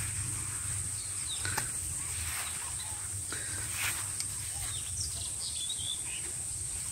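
Rural outdoor ambience: a steady high-pitched insect drone, with a few short bird chirps scattered through it.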